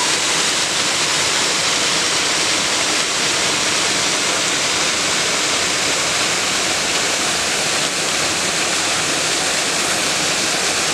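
Steady rush of falling water splashing into a lake, an even hiss that does not change.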